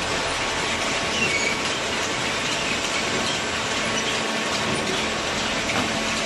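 Hydraulic waste-paper baler running: steady mechanical clatter and hiss with a few faint, brief squeaks.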